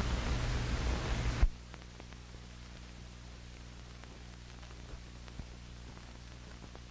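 Old film soundtrack noise: hiss over a steady mains-like hum, which drops suddenly about a second and a half in to a fainter steady hum and hiss with a few faint clicks.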